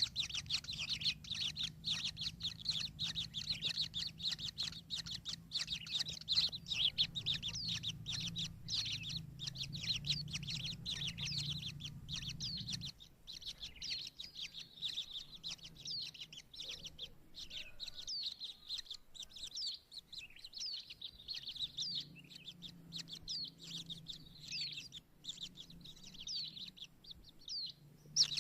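Kingfishers giving a rapid, continuous stream of high chirps, softening somewhat partway through. A low steady hum sits under the first half and stops about halfway.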